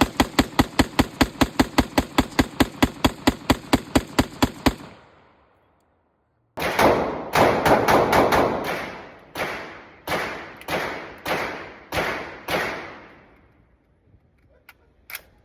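Airsoft AR-15-style rifle firing on full auto, a rapid even string of about six shots a second that stops abruptly near the five-second mark. After a short gap of silence, a quick burst is followed by single shots about every half second, each with a ringing tail.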